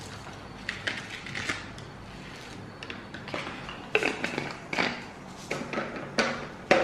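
Scattered light clicks and taps of a plastic spice bottle being handled: its cap is turned on and the bottle is set back into a plastic revolving spice rack.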